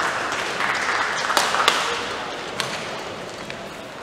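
Crowd noise in a sports hall, with scattered clapping, dying down after a point. A few sharp knocks stand out, one at about a second and a half and another near the middle.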